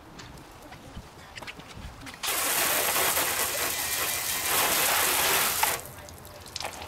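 Water sprayed from a hose nozzle onto the side of a car, rinsing the soap off the painted body panel: a steady spray hiss that starts suddenly about two seconds in and cuts off about three and a half seconds later.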